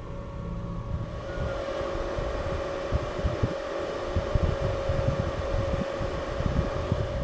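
Electric arc welding: the arc strikes about a second in and runs with a steady crackling hiss, stopping right at the end.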